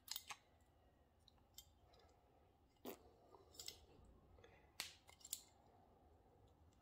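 Faint, scattered small clicks and taps as a motorcycle bar-end mirror adapter is worked by hand to slip its ring out: about half a dozen sharp ticks, the clearest about three and five seconds in.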